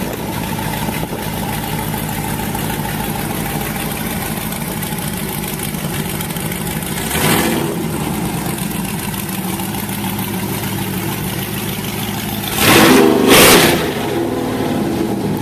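A car engine idling, revved briefly about halfway through, then revved twice more, louder, near the end.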